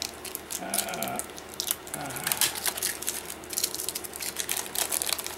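Plastic packing wrap crinkling and crackling as it is handled and pulled off a part, a dense run of small crackles.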